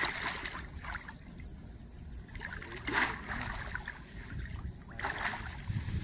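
Shallow water splashing and sloshing as a person wades through it and lowers a wire crab trap into it, in short bursts, with the loudest splash about three seconds in.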